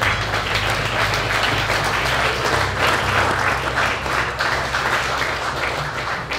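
Audience applauding: dense, steady clapping from a roomful of people, easing slightly near the end.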